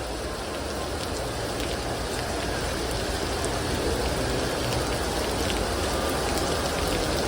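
Heavy rain pouring down, a steady hiss of drops on the ground that grows slightly louder toward the end.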